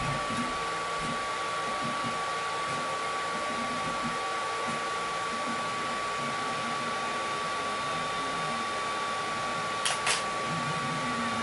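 Fisher delta 3D printer running mid-print: a steady fan whir with a constant high tone, under the short, shifting hum of its stepper motors as the print head moves. Two sharp clicks about ten seconds in.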